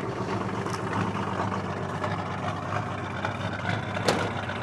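Nissan SD33T turbo-diesel inline-six in an International Scout II idling steadily, freshly cold-started after sitting for months. A single sharp click sounds about four seconds in.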